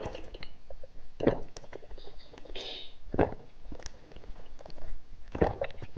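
Close-miked eating sounds: three sharp wet bites or smacks about two seconds apart, with small mouth clicks and chewing between them.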